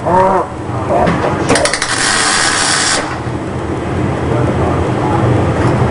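A welding arc strikes about a second and a half in with a few crackles, then gives a harsh hiss for about a second and a half before cutting off, over a steady low machine hum.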